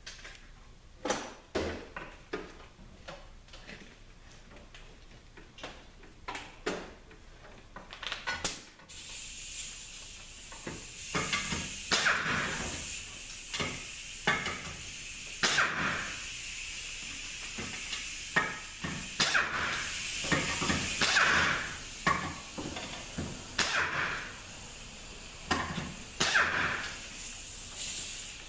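Pneumatic tool hissing, starting about nine seconds in and running on with repeated louder surges, as T45 Torx bolts are backed out of the automatic transmission's rear support. Before that, a few light clicks and clinks of tools and parts.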